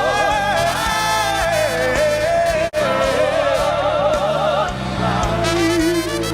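Live gospel worship music: long held, wordless sung notes with a wide vibrato over a steady band backing. It cuts out for an instant a little under three seconds in.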